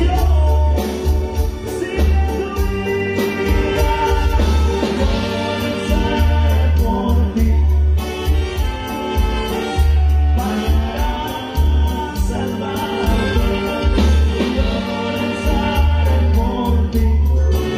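Live Latin band playing a song with trumpet, alto saxophone, electric bass and drums, with singing over it. A heavy, steady bass beat runs under regular cymbal ticks.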